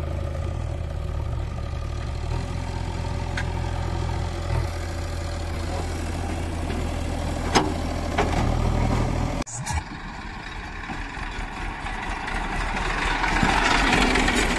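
JCB 3DX backhoe loader's diesel engine running steadily at idle, with one sharp clank about seven and a half seconds in. About nine seconds in the sound changes abruptly to a Massey Ferguson tractor's diesel engine running close by, growing louder near the end.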